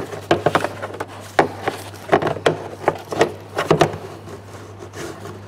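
Plastic fuel pump access cover in a VW Golf's floor being fitted over the sender opening: irregular clicks, taps and rubbing of plastic on plastic, a few a second, as it is pressed and shifted into place.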